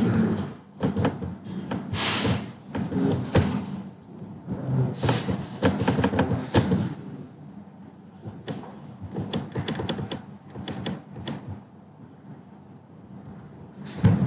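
Irregular knocks, clicks and rustling in uneven clusters, busiest in the first half and dying away near the end.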